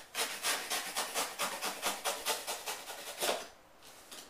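X-Acto knife sawing through a cardboard box in quick scraping strokes, about five a second, ending with a louder stroke a little over three seconds in.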